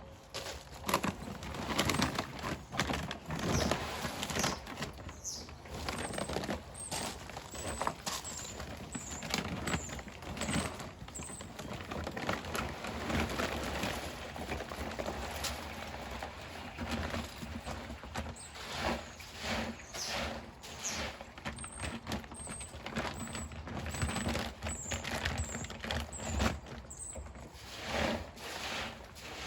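Small plastic K1 filter media rattling and clattering irregularly as it is tipped out of a filter drum into a bag, with the bag rustling.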